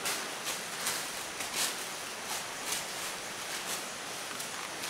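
Soft rustles in dry leaves and undergrowth, a few a second, over a steady outdoor hiss.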